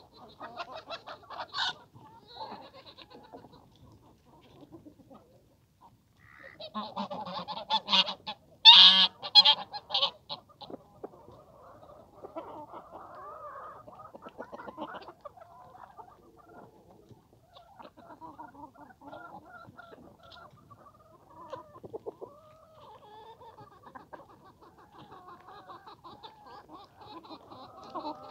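Farmyard poultry, free-range chickens and a duck, calling. Bursts of loud, rapid calls come about a second in and again from about seven to ten seconds in, over softer clucking the rest of the time.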